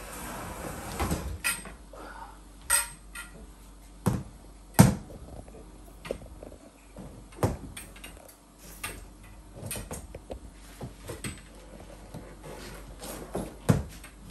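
Painted metal tubes of a Jolly Jumper baby-jumper stand clinking and knocking as they are slotted together: a string of separate sharp clicks and knocks, the loudest about five seconds in.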